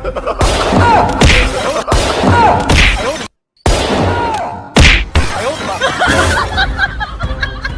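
A run of loud hits and crashes, about five sharp strikes, with music underneath and a short dead silence a little over three seconds in.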